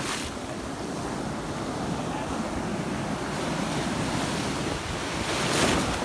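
Ocean surf breaking and washing around a person wading waist-deep, with water splashing close to the phone's microphone. A louder rush of breaking water builds near the end.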